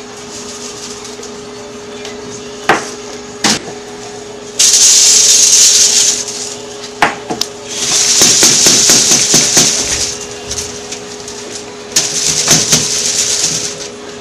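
Steady hum of a running powder homogenizer, with a few sharp knocks and three long bursts of dense rattling as hard capsules are shaken in a capsule-loading tray.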